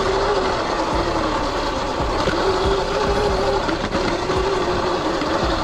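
Sur-Ron X electric dirt bike ridden along a dirt trail: the electric motor's whine wavers slightly with the throttle over wind and tyre rush, with scattered knocks from the rough ground. The battery is down to about 12%.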